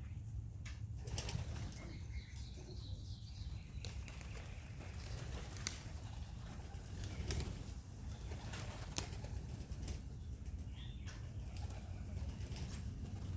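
Young racing pigeons flapping their wings as they take off and fly around the loft, with scattered sharp clicks over a steady low rumble.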